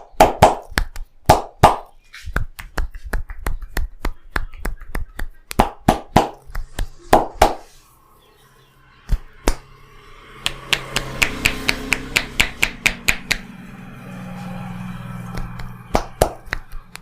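Hands slapping and tapping on a head during a tapping head massage: a string of sharp, uneven slaps, then about ten seconds in a faster, even run of chopping taps, about five a second.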